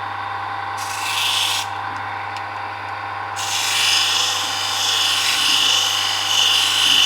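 Electric abrasive tool running with a steady hum, its abrasive rubbing against the multitool's steel blade to restore a satin finish: a short grinding pass about a second in and a longer one from about halfway.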